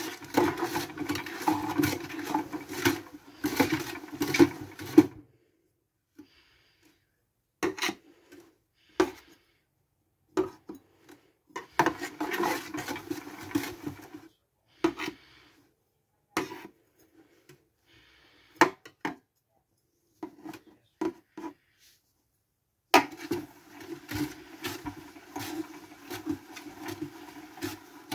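Toy washing machine's small motor running in three bursts of a few seconds each, a steady hum with rattling. Between the bursts, a metal knife makes sharp clicks and scrapes against the plastic drum.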